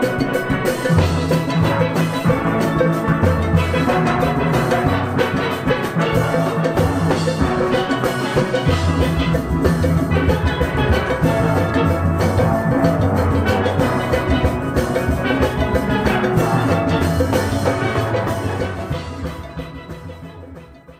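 Steel pan band music over drums with a steady beat, fading out near the end.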